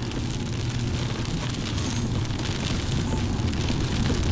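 Steady vehicle cabin noise: a low engine and road rumble with a constant hiss over it.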